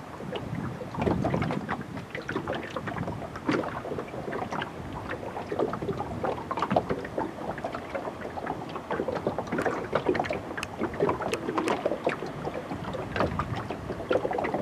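Small waves lapping and slapping irregularly against a boat's hull, with some wind on the microphone.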